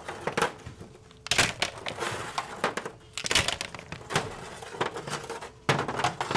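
Hard clam shells clattering and knocking against each other in an orange plastic mesh bag, in a few bursts of rapid sharp clicks and crunching.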